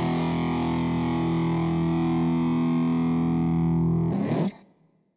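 Electric guitar through the BOSS BR-900's COSM guitar amp modelling on patch P48 'EARY70's': one overdriven chord left to ring, then choked off about four seconds in.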